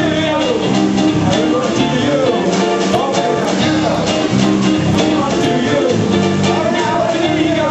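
Live rock band playing an instrumental passage on electric guitars, keyboard and drums, with a lead guitar bending notes up and down over a steady backing.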